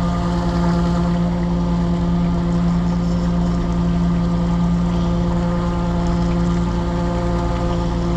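Steady, loud engine drone of a working mussel barge, an unbroken low hum that does not change in pitch or level.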